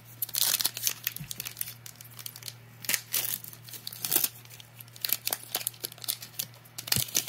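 Foil Pokémon booster pack wrapper crinkling and tearing as it is opened in gloved hands, in irregular sharp crackles.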